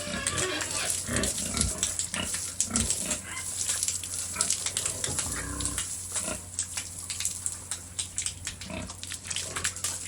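Domestic pigs grunting in short low bursts every second or two, over a busy stream of short sharp clicks and knocks.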